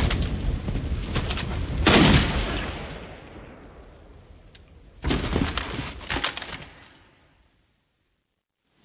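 Battle gunfire from a war-film soundtrack: a rapid exchange of rifle and machine-gun shots, then a loud report about two seconds in that dies away slowly. About five seconds in a second burst of sharp shots comes, and it fades to silence near the end.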